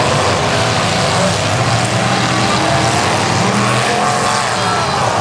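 Engines of demolition derby trucks running together in a loud, steady drone.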